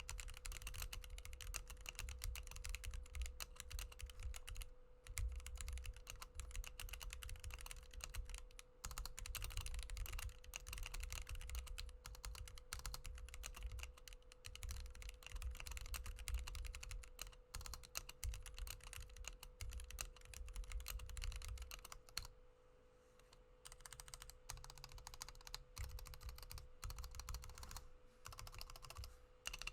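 Typing on a Womier K61 mechanical keyboard with lubed and filmed Gateron Yellow linear switches: fast, continuous keystrokes that stop briefly about three-quarters of the way through, then resume. A faint steady hum lies underneath.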